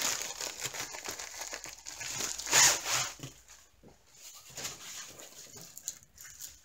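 Thin plastic packaging crinkling and rustling as it is handled and a rolled canvas is slid out of it, with a louder rustle about two and a half seconds in.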